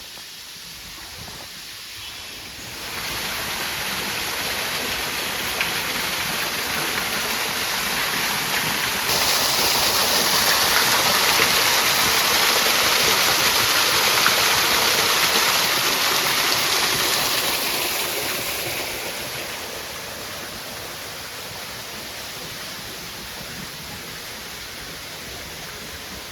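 Teresa Falls, a waterfall, rushing as a steady hiss of falling water. It grows louder about three seconds in, is loudest for a stretch in the middle, and eases off again after about eighteen seconds.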